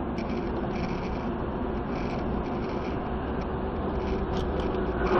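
Steady cabin noise of a moving car recorded by a dashcam: tyre and engine hum with a faint steady drone, growing slightly louder near the end.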